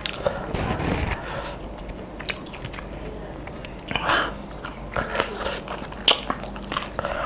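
A person eating mutton with his hands: biting meat off the bone and chewing, with wet mouth noises and a scatter of sharp clicks, the loudest a few seconds in.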